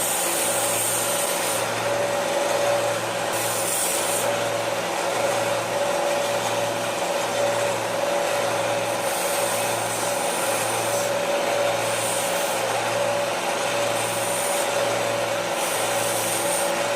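Belt sander running with a steady hum and a low pulse about once a second. An 18-gauge copper edge is ground against the belt in several short spells of hiss.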